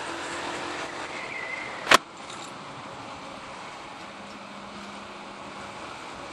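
Yamaha YBR125's single-cylinder 125cc engine running at road speed under a steady rush of road and wind noise. One sharp knock comes about two seconds in.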